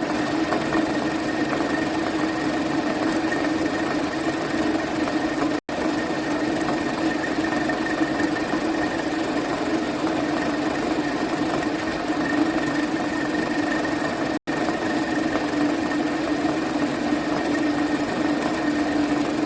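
Converted vertical milling machine running steadily, with a constant hum and a high whine, while doing friction stir deposition. The sound drops out for an instant twice, about a third and three quarters of the way through.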